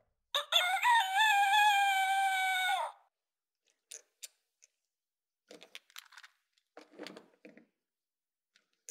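Recorded rooster crow from the BRIO My First Farm's sound meadow, set off by the chicken figure placed in it: one electronic crow of about two and a half seconds, rising at the start and then held. After it come a few soft clicks and knocks of the wooden sheep being set into the toy wagon.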